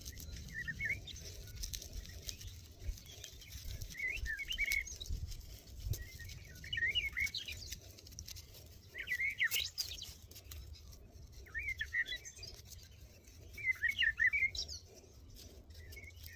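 Small birds chirping in short twittering phrases every second or two, over a low steady rumble.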